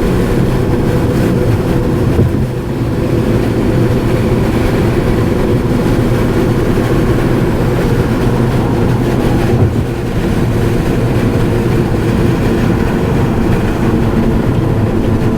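Steady road and engine noise of a car driving at speed: a continuous low drone with a steady hum.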